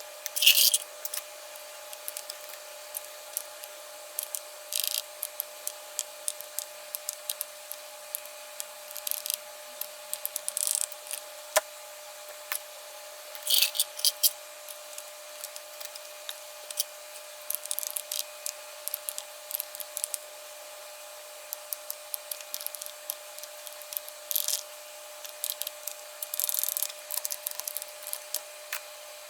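Small parts of a custom mechanical keyboard being handled and fitted by hand: irregular light clicks, snaps and brief scraping rustles with pauses between them.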